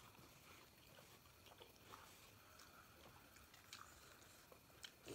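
Faint chewing and small wet mouth clicks of people eating soft steamed momos, over near silence.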